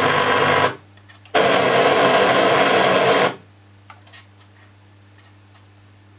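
Toyota (Matsushita) A56409 factory car stereo playing FM radio: music cuts out for under a second, another stretch of music plays for about two seconds, then it cuts off suddenly to a low steady hum with a few faint clicks.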